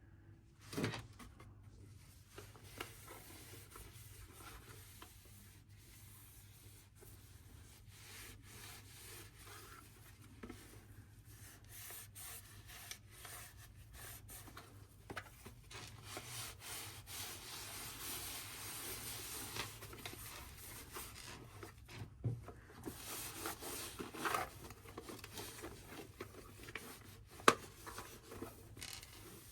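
Faint rubbing and scrubbing by hand, going on unevenly, with scattered light clicks and knocks; the loudest is a sharp tap near the end.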